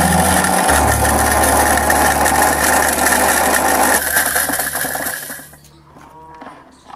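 Usha mixer grinder running loudly with metal blades in its stainless-steel jar: a harsh grinding, rattling noise over the motor's hum as the blades are ground to pieces. It is switched off about five seconds in and winds down quickly.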